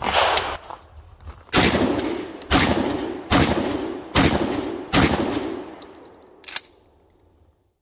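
A Stevens 77E 12-gauge pump-action shotgun fired five times in quick succession, about one shot every 0.8 seconds, each report ringing off the range walls. A loud sharp report comes right at the start, and a single short click sounds near the end.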